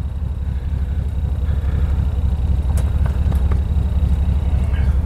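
A 1955 Ford wagon's 272 Y-block V8 running smoothly as the car pulls away at low speed, heard from inside the cabin. A low, steady sound that grows slightly louder.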